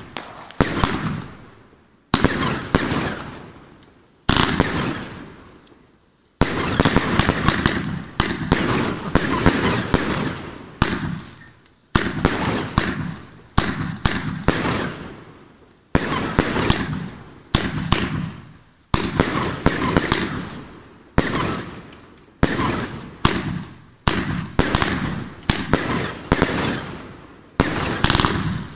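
Consumer firework battery firing shot after shot, each a sharp bang that trails off into crackling. The shots come about one every one to two seconds, with a faster run of them a few seconds in.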